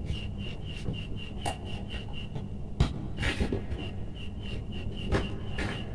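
Hands rubbing and rustling electrical cable and setting a plastic lamp holder on a workbench, with a few sharp knocks, the loudest nearly three seconds in. A high pulsing tone repeats about four times a second throughout.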